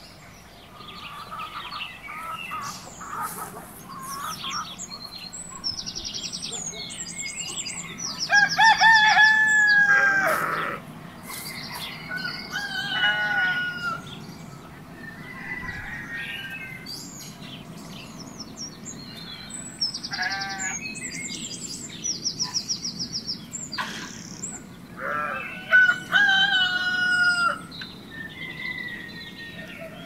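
Farmyard chicken sounds: a rooster crowing loudly about eight seconds in and again near the end, with hens clucking and small birds chirping in between.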